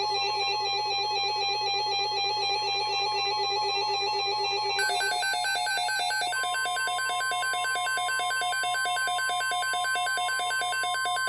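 Electronic, ringtone-like music of fast trilling notes. About six seconds in, a single steady tone near 1 kHz joins it and holds: the NOAA Weather Radio 1050 Hz warning alarm tone that comes before the alert message.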